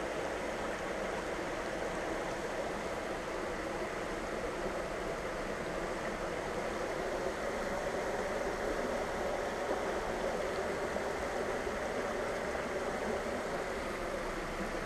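Shallow stream water running steadily as a continuous, even rush of noise.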